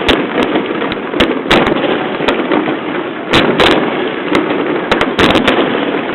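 Fireworks display: aerial shells bursting in an irregular string of sharp bangs, a dozen or more, some in quick clusters, over a continuous rumbling haze of further bursts.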